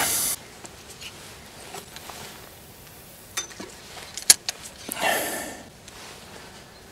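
Quiet handling of fishing bait and tackle: a few small clicks, one sharper about four seconds in, and a soft rush of noise about a second later.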